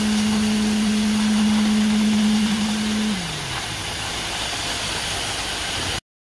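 A machine motor at a concrete pour, running with a steady hum. About three seconds in it slides down in pitch and gets quieter as it slows, then runs on at the lower speed until the sound cuts off suddenly near the end.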